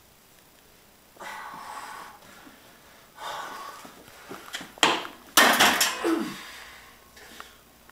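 A lifter straining through a heavy barbell bench press: hard, heavy breaths and grunts that build up, the loudest a sharp exhale and a grunt falling in pitch about five and a half seconds in.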